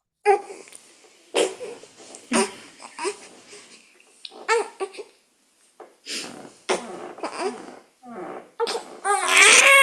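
A person's short wordless vocal sounds, one after another with breaths and brief pauses between them, then a louder, longer wavering vocal sound near the end.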